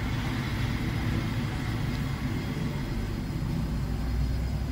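A steady low rumble with no distinct events.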